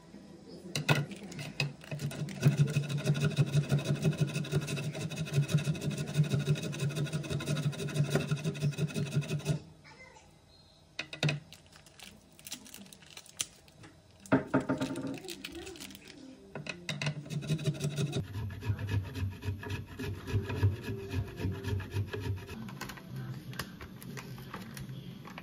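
Block of parmesan being grated on a flat handheld stainless-steel grater: rapid rasping strokes of cheese on metal, stopping about ten seconds in and briefly starting again later.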